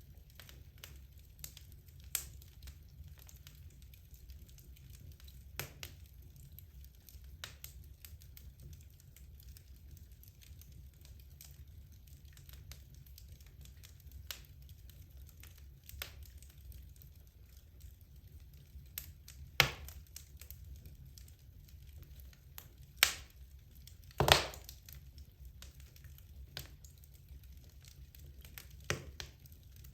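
Wood logs burning in a fireplace, crackling with scattered sharp pops over a steady low rumble; the loudest pops come in a cluster about two-thirds of the way through.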